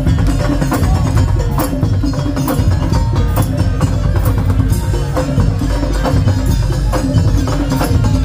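Madurese tong-tong percussion ensemble playing: wooden slit-drum knocks, gongs and drums in a steady, driving rhythm over a heavy bass.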